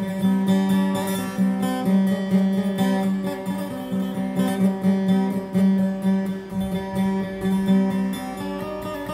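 Steel-string acoustic guitar played in the Maguindanaon dayunday style: quick, repeated plucking of a melody over a steady low drone note.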